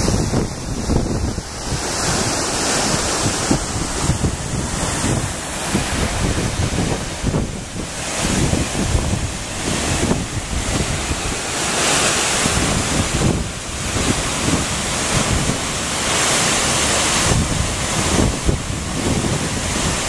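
Waterfall rushing steadily, with wind buffeting the microphone in irregular gusts.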